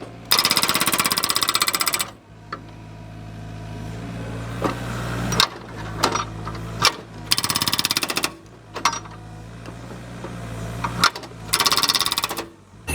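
Hydraulic breaker on an excavator hammering in three rapid bouts, with a steady engine hum and a few single knocks between them.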